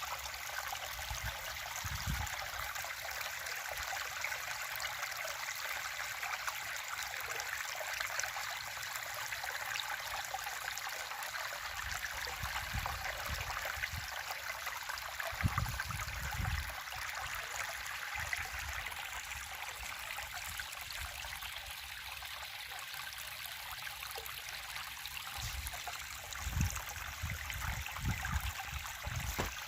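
River stream running steadily, an even rush of flowing water, with a few short low thumps now and then.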